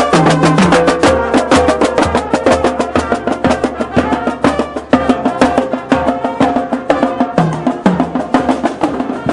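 A marching band passing in a parade, its drums playing a fast, steady beat with some held notes from the band over them.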